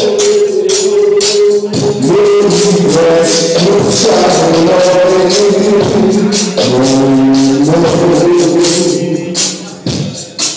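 Dub music played loud through a sound system: long held melodic notes that shift in pitch every second or two over a steady, evenly spaced percussion beat. The music thins out near the end.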